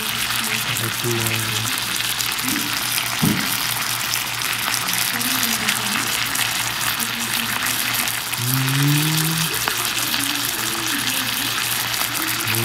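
Chicken and cabbage sizzling steadily on a hot cast-iron plate, with a single sharp clack about three seconds in.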